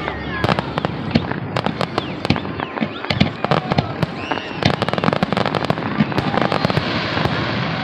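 Fireworks going off in quick succession: many sharp bangs and cracks over continuous crackling, with faint whistles.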